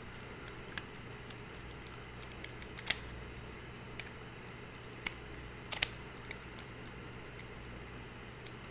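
Small scattered clicks and ticks of a screwdriver tightening the diaphragm cover screws on a Stihl MS250 chainsaw carburetor, with a few sharper clicks about three, five and six seconds in, over a low steady hum.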